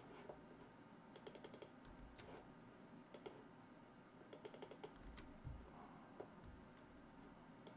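Faint typing on a computer keyboard: quick runs of keystrokes about a second and a half in and again around four and a half seconds in, with a few single clicks between.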